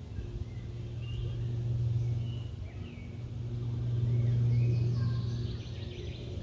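A steady low motor hum that swells louder about four seconds in and then eases off, with small birds chirping now and then.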